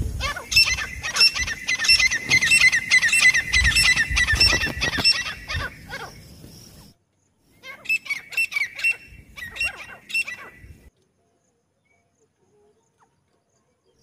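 Francolins calling: a fast run of sharp, high, repeated notes for about six seconds, then two shorter bursts of the same notes, after which the sound cuts off into silence.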